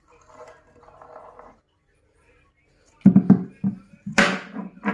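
A potato knocking about inside a small plastic tub as it is shaken and banged down, a run of sharp knocks from about three seconds in, the loudest just after four seconds. Softer rattling comes in the first second and a half.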